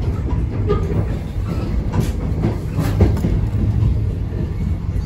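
Long-distance passenger train rolling past: a steady low rumble of wheels on track, with a few sharp clacks over rail joints about two and three seconds in.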